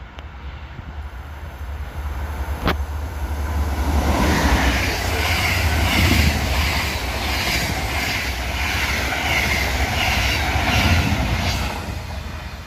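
Locomotive-hauled passenger train passing close at speed, its coach wheels clattering over the rail joints in a quick, even rhythm over a low rumble. The sound builds from about four seconds in and eases off near the end.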